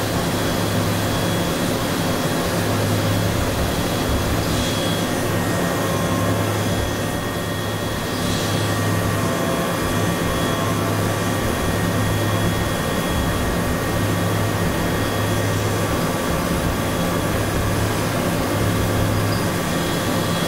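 CNC machining centre spindle running at 8,000 rpm while a small end mill cuts hardened SKD61 tool steel: a steady mechanical hum with several held tones.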